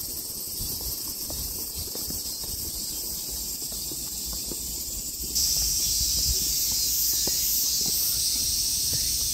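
Summer cicadas droning in a dense high-pitched chorus that suddenly grows louder about five seconds in, pulsing slightly, with faint footsteps beneath.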